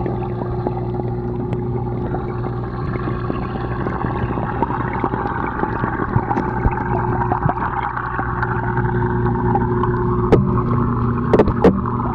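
Aquarium pump humming steadily with water bubbling and churning in the tank. Three sharp knocks come near the end.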